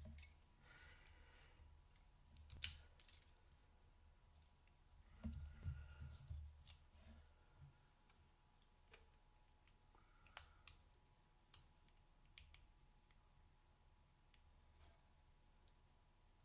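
Faint metallic clicks and light scraping as parts of a disassembled Master Lock Pro Series 6835 padlock and its core are handled, in a few short clusters, with a sharper single click about ten seconds in.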